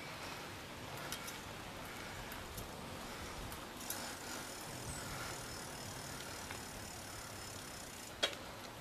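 A bicycle ridden along a paved path: steady rolling noise with small rattles and clicks from the bike, and one sharp knock near the end.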